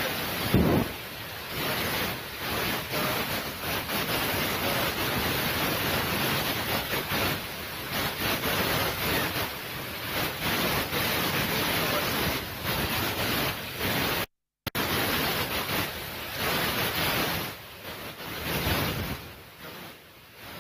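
Wind buffeting the microphone, a rushing hiss that swells and falls, cutting out to silence for a moment about two-thirds of the way through.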